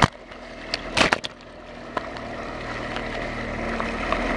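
Ring 16 speedboat running at speed, heard through a waterproof camera case on the hull: water rushing along the hull over a steady engine hum, growing gradually louder. A few sharp knocks sound about a second in.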